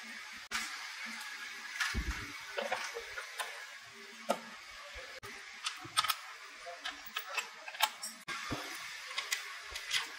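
Light metallic clinks, taps and knocks of gearbox parts and hand tools being handled during manual gearbox assembly: a scattered series of short sharp clicks over a steady hiss.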